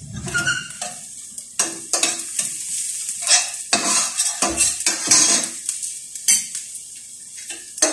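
Food sizzling in hot oil in a stainless steel frying pan, with a spoon scraping and clacking against the pan as it is stirred.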